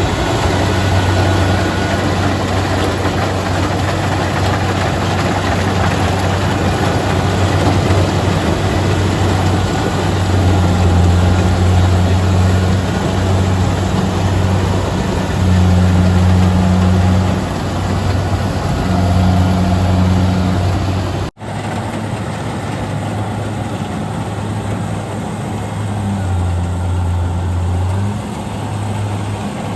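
Kubota DC-70G rice combine harvester's diesel engine running steadily as the machine works, with a strong low hum that swells and eases in strength as the load changes. The sound breaks off for an instant about two-thirds of the way through and resumes slightly quieter.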